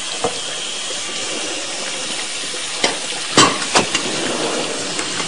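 Food frying in oil in a pan with a steady sizzle. A few sharp clinks of utensils or dishes come near the middle.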